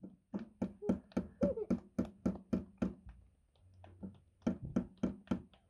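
Two small children clapping palms together in a hand-clapping game: a quick, regular run of claps at about four a second, a short pause, then a few more claps.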